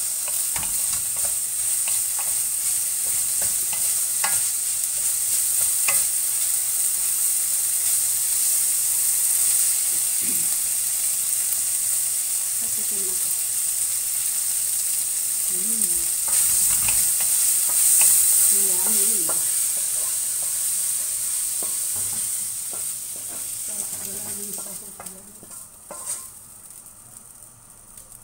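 Stir-frying green vegetables in a wok: a steady sizzle with a wooden spatula scraping and knocking against the pan. The sizzle dies away about 24 seconds in, leaving a few light knocks.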